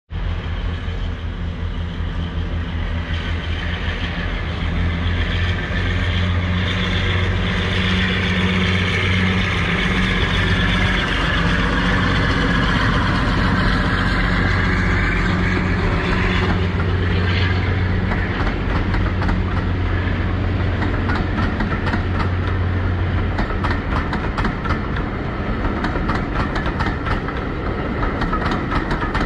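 Class 52 'Western' diesel-hydraulic locomotive D1040 pulling away under power and passing close by, its engines running with a whine that rises and falls as it goes past. After it has passed, the engine sound fades and the coaches' wheels clatter in a rapid clickety-clack over the rail joints.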